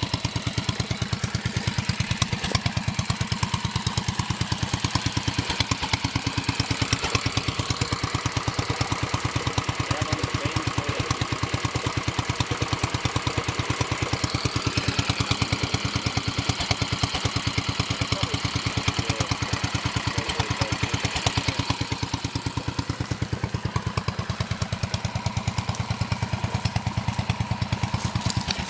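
Petter single-cylinder petrol engine running at a steady speed with an even, rapid firing beat. It is belt-driving a Southern Cross Billabong crosshead water pump.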